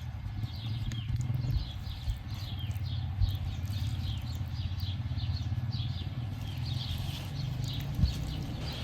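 A bird calling in a long run of short, falling chirps, about three a second, over a steady low rumble.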